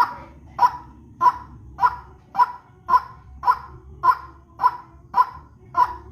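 White-breasted waterhen (ruak-ruak) lure-call recording: a loud, harsh single note repeated evenly, a little under twice a second, about eleven calls.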